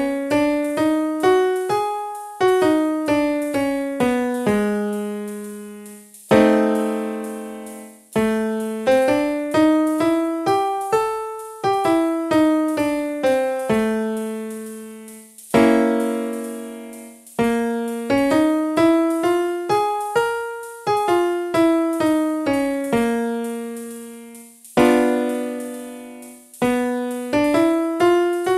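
Solo piano playing a blues-scale singing warm-up exercise: single struck notes run up and back down the scale, with a held chord between runs, several times over.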